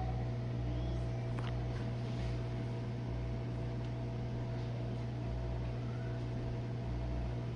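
Jenn-Air dishwasher's drain pump running during the drain stage of a wash cycle: a steady electric hum with a deeper throb that swells and fades irregularly.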